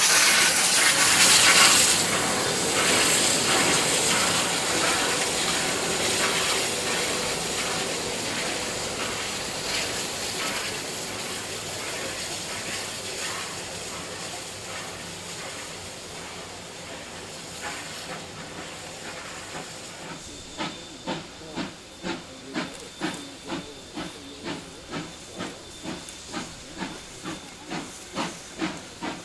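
Two steam locomotives, R766 and 5917, running coupled as a double-header light engine. A loud rush of steam hiss as they pass close fades steadily as they draw away. From about two-thirds of the way in, their exhausts come through as a regular chuff of about two beats a second.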